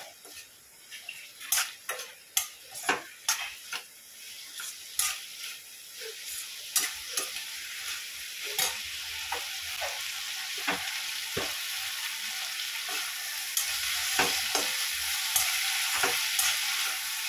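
A metal spoon scrapes and knocks against a stainless-steel kadhai as potato-and-capsicum sabzi is stir-fried, with many sharp clinks in the first half. The frying sizzle builds and grows louder through the second half.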